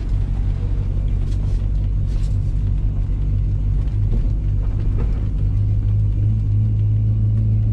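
Pontiac Firebird Trans Am's V8 running with a low, steady rumble while still warming up after a cold start, heard from inside the cabin. The engine note grows louder and slightly higher about five and a half seconds in.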